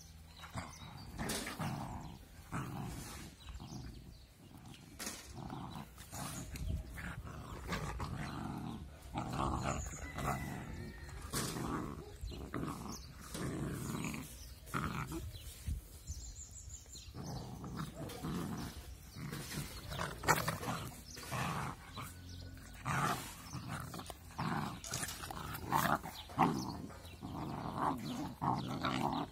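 Puppies growling at each other as they play-fight, in many short, irregular bursts.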